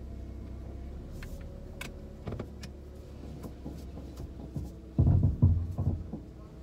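Car cabin noise while driving: a steady low rumble of road and engine, with a few light ticks and a short run of louder low thuds about five seconds in.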